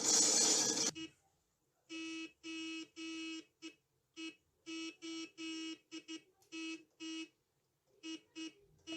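Truck horn honking out Morse code, a run of short and long blasts on one pitch. It starts about a second in, after a loud rushing noise that cuts off suddenly.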